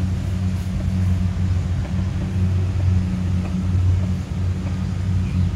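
An engine running steadily, with a low, even drone.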